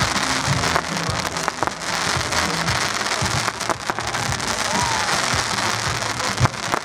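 Fireworks bursting overhead: a dense, continuous crackle with several sharp bangs scattered through it.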